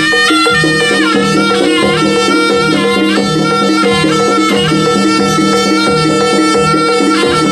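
Jaranan (kuda kepang) gamelan accompaniment: a reedy wind instrument plays a held, wavering melody over drums and a repeating pattern of low pitched notes.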